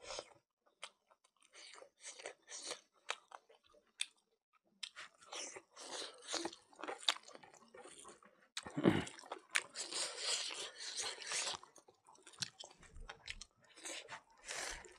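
A person chewing and crunching mutton curry and rice, eaten by hand, in irregular bursts that are busiest in the middle.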